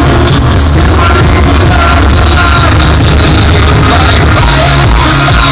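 Loud music with heavy bass and a melody line, continuous and near the recording's limit.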